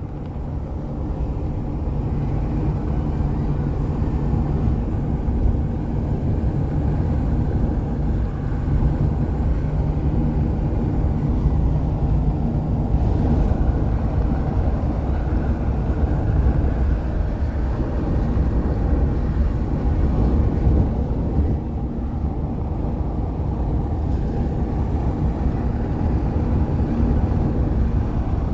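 Steady low rumble of a moving car: engine, road and wind noise, with no break.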